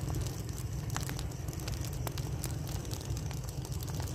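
Large pile of rice straw burning fiercely, giving scattered sharp crackles over a steady low rumble.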